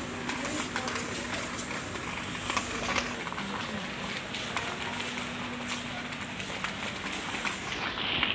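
Busy supermarket background noise, with the phone's microphone rubbing and knocking against clothing as it is carried, and a faint steady low hum for most of it.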